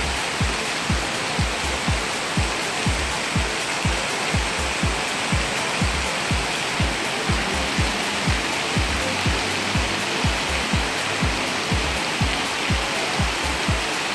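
Heavy rain falling steadily, a dense even hiss, with background music's low beat pulsing about twice a second.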